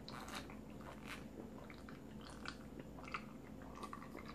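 Faint, irregular swallowing and mouth sounds of a person drinking iced juice from a glass, close to the microphone.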